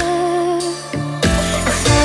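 Pop music playing without lyrics: held melodic notes over a bass line, with the fuller backing coming back in a little over a second in.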